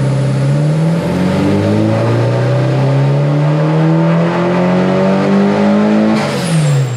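Nissan 240SX S14's turbocharged SR20DET four-cylinder making a full-throttle pull on a chassis dyno: the engine note climbs steadily in pitch for about five seconds, then drops sharply with a burst of hiss as the throttle closes near the end.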